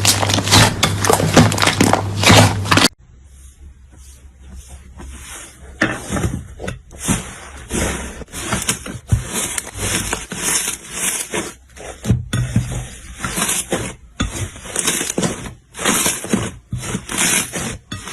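Slime being squeezed and pressed by hand: dense, loud crackling for about three seconds, then, after a sudden cut, quieter irregular clicks, pops and squelches that pick up again.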